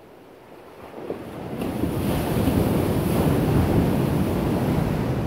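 Ocean surf: a wave breaking and washing in, swelling about a second in, holding, then easing off near the end, with wind on the microphone.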